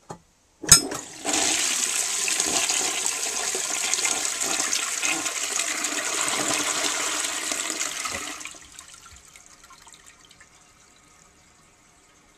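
1943 Sentry Sanitary Corporation forward-trap washdown bowl with a Standard 4050 tank, flushing eight wads of toilet paper. A sharp click of the flush handle is followed by about seven seconds of loud rushing water that cuts off fairly suddenly, then a faint trickle as the bowl refills. The paper clears in the one flush.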